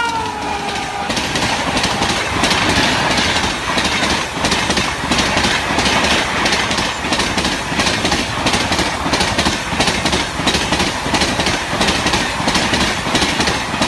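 Train passing close at speed: a loud rush with a dense, quick run of wheel clicks over the rail joints. The horn's last note drops in pitch and fades in the first second.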